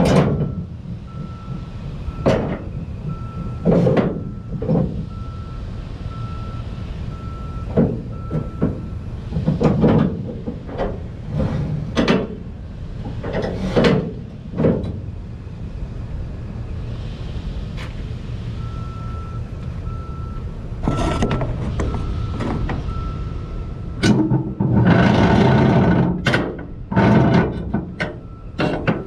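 A vehicle's reversing alarm beeps in an even string over a steady low engine rumble. It stops for several seconds midway, then starts again. Scattered clanks and knocks come from straps and hooks being handled against the flatbed trailer's rail, with a longer scraping, rustling noise near the end.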